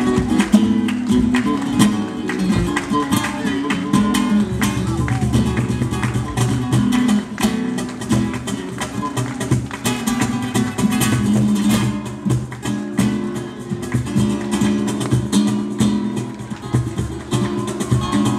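Flamenco guitars playing a bulería, quick picked notes mixed with sharp strummed chords.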